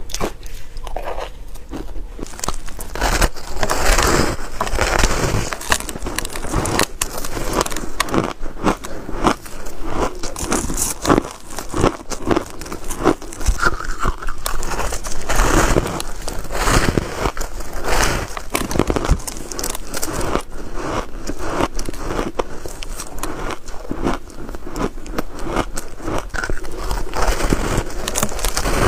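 Close-up biting and chewing of dry shaved ice dusted with green matcha powder: dense, continuous crunching and crackling with many sharp clicks.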